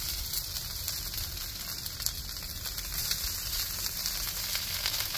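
Raw bacon strips sizzling on a hot carbon steel griddle: a steady hiss with small crackles scattered through it.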